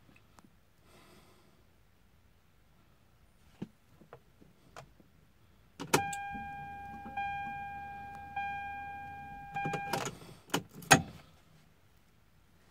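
Small key clicks, then a 1997 Toyota Supra's ignition switched on about six seconds in: a steady-pitched dashboard warning chime sounds for about four seconds, re-sounding about every second and a bit, with a low hum beneath it. Then several sharp, loud clicks as the key is turned back off.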